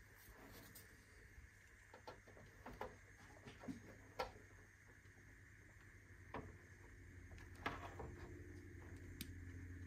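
Near silence: faint room tone with a low hum, broken by a few scattered light clicks and knocks.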